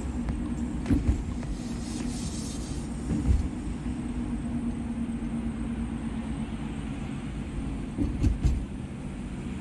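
Car driving at speed on a highway, heard from inside the cabin: a steady low rumble of road and engine, broken by a few short thumps about a second in, after about three seconds, and twice near the end.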